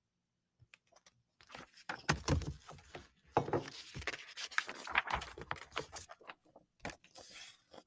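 Pages of a picture book being turned and the book handled: irregular paper rustling and rubbing, with a few light clicks.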